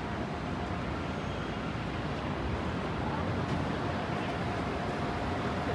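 Steady downtown street ambience of traffic noise, with a faint steady whine coming in about four seconds in.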